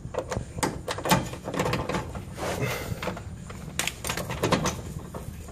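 Socket wrench on a long extension turning out an 18 mm K-member bolt: a run of irregular metallic clicks and clatter.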